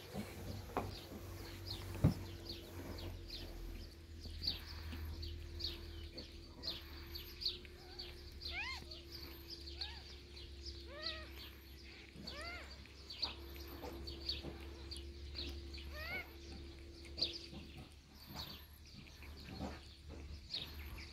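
Newborn kittens squeaking with short, thin mews, most of them in a cluster in the middle, over a steady low hum.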